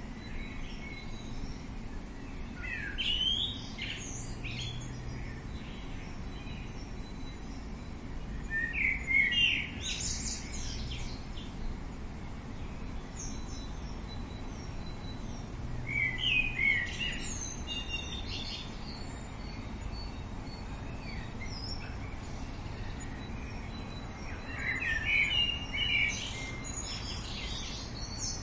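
Songbirds singing short bursts of quick, high chirping notes, about four times at intervals of roughly seven or eight seconds, over a steady outdoor background hiss.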